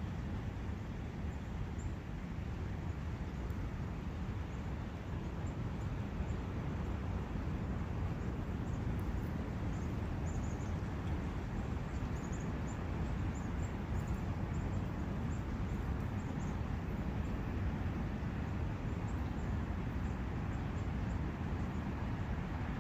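Steady rushing of a brook flowing through a forest, with faint high bird chirps here and there.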